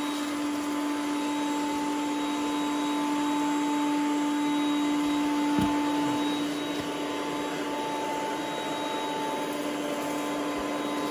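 Ecovacs Deebot T8 Power robot vacuum running: its suction fan gives a steady whirring hum with a high whine while it drives across a wooden floor, with one light knock about halfway through.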